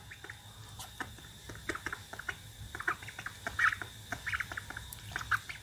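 Duckling drinking from a plastic cup of water, its bill dabbling and clicking in the water as a run of small irregular clicks and splashes.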